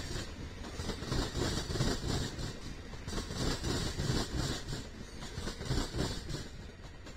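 Amtrak bi-level Superliner passenger cars rolling past: steel wheels rumbling and clacking over the rail joints in a quick, uneven rhythm, fading over the last second as the train moves away.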